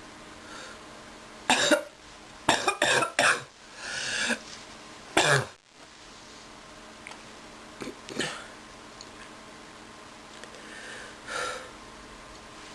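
A sick person coughing: a cluster of harsh coughs between about one and a half and five and a half seconds in, including a quick run of three, then two fainter coughs later on.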